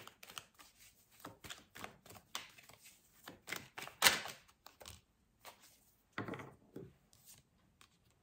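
A deck of tarot cards being shuffled by hand: an irregular run of soft card clicks and slaps, with the loudest about four seconds in.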